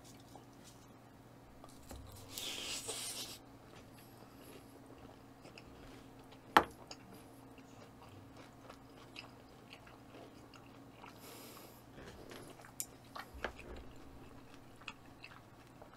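Faint, close-miked chewing of raw bluefin tuna belly sashimi, with small wet mouth sounds and light crunches from the firm belly cut. A single sharp click comes about six and a half seconds in, and short soft hisses come near two seconds and near eleven seconds.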